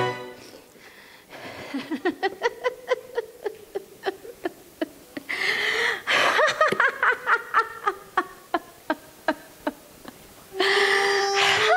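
A Yue opera performer's long stylized laugh: a run of short, pitched 'ha' pulses starting about a second in, with a louder outburst around the middle. Traditional opera accompaniment comes back in near the end.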